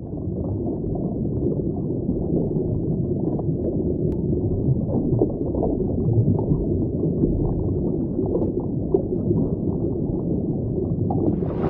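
Muffled water heard from below the surface, sloshing and gurgling around the hull of a kayak, with faint small ticks scattered through it.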